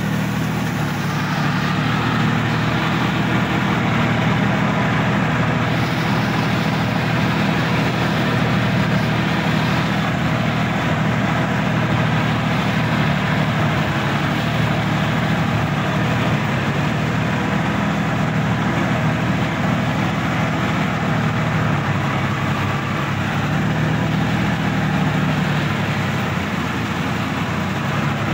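Sonalika DI-50 RX tractor's diesel engine running steadily, heard close up from the driver's seat.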